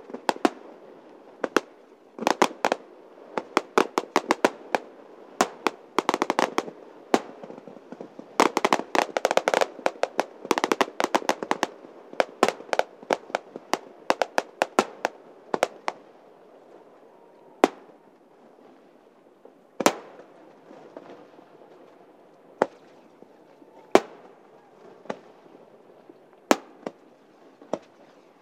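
Aerial fireworks bursting: rapid volleys of sharp bangs and crackles for about the first half, thinning to single bangs every second or two after that.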